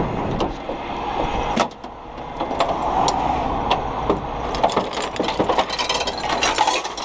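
Irregular clicks and knocks of rigging hardware being handled, chain and shackles, over a low steady rumble that drops away after the first second and a half or so.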